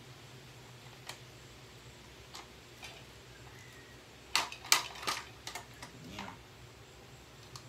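Scattered light clicks, then a quick run of sharp clicks and knocks about four seconds in, from parts and tools being handled while a Bissell handheld vacuum is taken apart.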